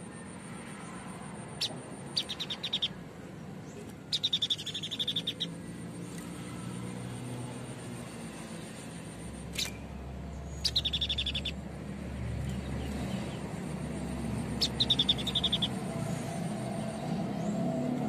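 White-breasted babbler (Stachyris grammiceps) calling in short rapid trills of sharp, high notes: four runs of about a second each, with a couple of single sharp clicks between them.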